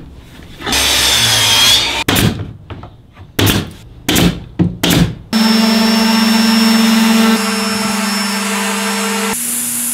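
Woodworking power tools in quick succession. About a second of hissing machine noise, then a pneumatic brad nailer firing about five times in sharp pops, then random orbital sanders running with a steady motor hum and whine.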